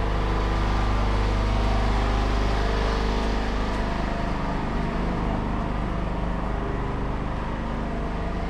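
Steady outdoor street noise dominated by a low motor hum, as of a motorbike or other small vehicle engine running close by, with no sharp events.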